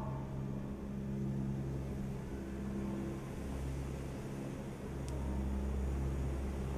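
A steady low mechanical hum with several held tones that fade in and out, like heavy machinery running. A single faint tick comes about five seconds in.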